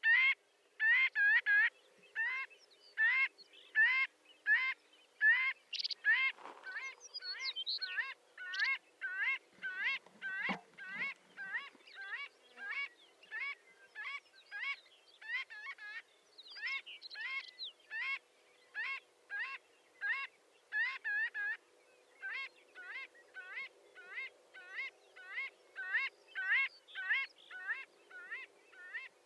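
Marbled godwits calling: a long run of short, repeated nasal calls, about two a second, with other calls overlapping them at times.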